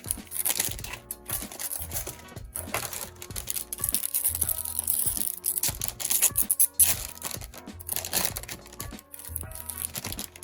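Plastic wrapping crinkling and tearing in irregular crackles as packets of collectible dog tags are opened by hand, over background music with sustained notes.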